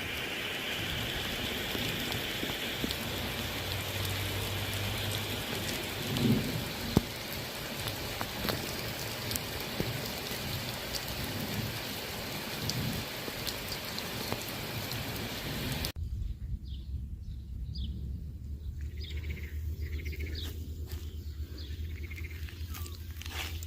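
Steady hiss of rain with scattered small drips and clicks. It cuts off suddenly about two-thirds of the way in to a quieter scene: a steady low hum with a few short high chirps, like small birds.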